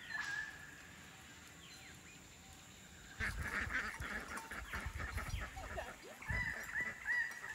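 Farmyard waterfowl honking and quacking in a noisy, overlapping chorus that breaks in about three seconds in. A run of repeated high calls follows near the end.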